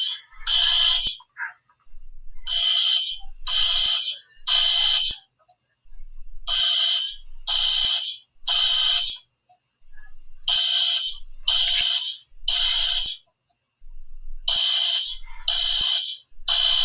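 Fire alarm sounding in groups of three shrill electronic beeps about a second apart, each group repeating every four seconds: the three-beep evacuation signal. It is a false alarm, set off by a pulled pull station.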